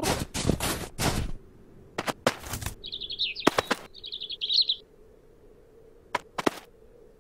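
Cartoon sound effects: a cat scuffling and crunching in snow in a few quick bursts, then a small bird chirping in two short phrases. Near the end come two short taps.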